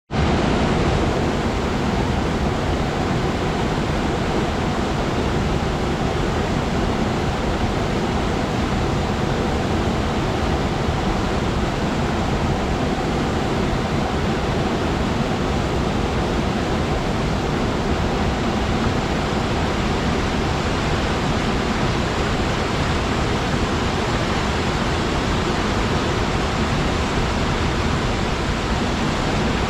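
Steady rushing roar of a small mountain waterfall, with water pouring and splashing.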